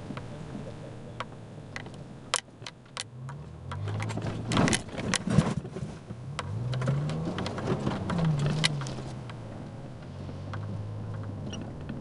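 Toyota FJ Cruiser's 4.0-litre V6 heard from inside the cabin, revving up and easing off several times on a rough, muddy dirt track, with scattered knocks and rattles from the bumpy ride.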